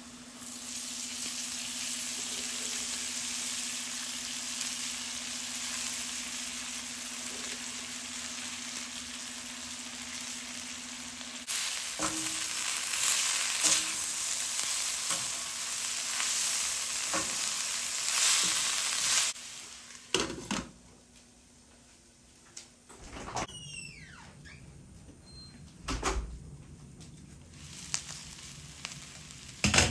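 Food frying in hot oil in a pan, a steady sizzle, with a utensil stirring and tapping against the pan from about twelve seconds in. The sizzling cuts off suddenly about twenty seconds in, leaving a few scattered knocks and a short sound sliding down in pitch.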